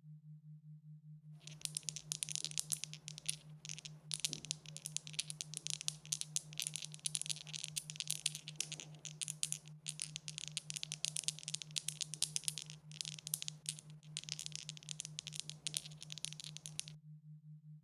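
Dice being shaken, a dense rapid rattle of many small clicks that starts a little over a second in, breaks off briefly a few times, and stops about a second before the end. A steady low hum sits underneath throughout.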